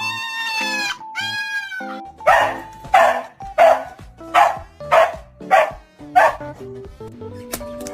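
A dog gives two high, arching whines, then barks six times in a steady rhythm, about one bark every two-thirds of a second, over light background music.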